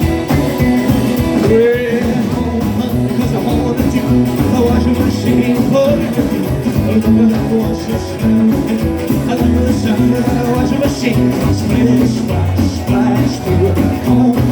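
Rockabilly band playing live, with singing and electric guitar over a steady boogie beat.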